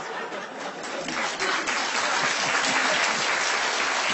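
Studio audience laughing and applauding; the clapping swells about a second in and then holds steady.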